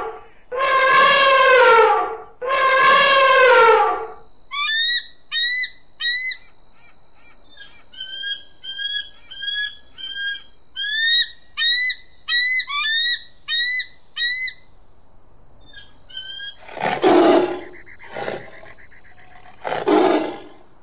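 Animal calls in sequence: three long, loud calls that each slide down in pitch, then a run of short rising chirps like a bird's, then two loud, rough roars near the end.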